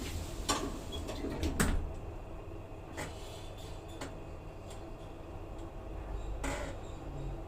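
Fujitec Royal Superdyne lift's doors and mechanism: a series of sharp knocks and clicks, the loudest about one and a half seconds in, over a steady low hum.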